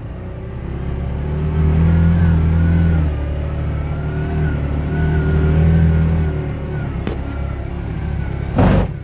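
ATV engine pulling under throttle, swelling twice as it accelerates. A sharp click comes about seven seconds in, and a short loud thump just before the end.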